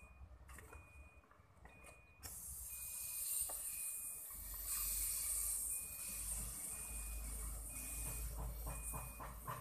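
Compressed air hissing from a paint spray gun's air line, starting suddenly about two seconds in and running on steadily, with a low rumble underneath.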